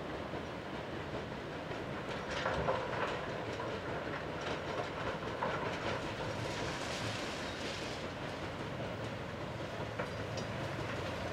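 Mobile rock crusher running with rock clattering through it, over the diesel engines of working excavators; many short clacks of rock on steel, with a thicker patch of clatter about two and a half seconds in.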